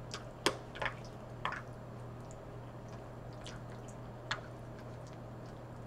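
Eating sounds at a table: a fork clicks sharply against a plastic takeout container a few times while pasta is twirled, with soft wet squishing and chewing between the clicks. A faint steady hum lies underneath.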